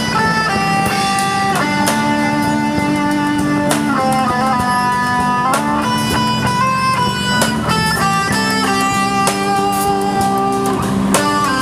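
Live band playing an instrumental interlude of a slow Indonesian pop ballad: a lead melody of held notes stepping from pitch to pitch over guitar chords and bass, with no singing.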